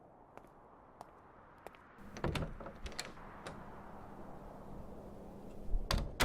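Soft footsteps, then a door opening about two seconds in with a rush of storm wind, and the door banging shut near the end.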